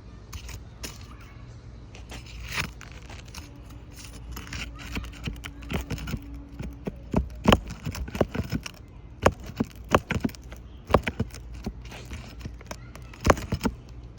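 A hand tool working under old asphalt shingles to pull roofing nails, a run of sharp clicks and knocks that get louder and more frequent from about halfway in. The nails are pulling through the brittle shingles instead of coming out.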